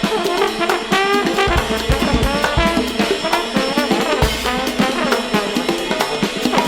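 Background music: an upbeat tune with brass horns over a steady drum-kit beat.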